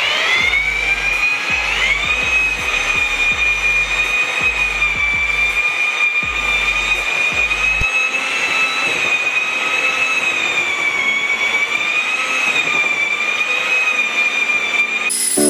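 Parkside 1800 W twin-paddle electric mixer working a bucket of B20 concrete mix: a steady motor whine that rises in pitch over the first two seconds as it spins up, then holds with slight wavering under the load of the mix. An uneven low rumble runs under it for the first half, and the sound cuts off abruptly near the end.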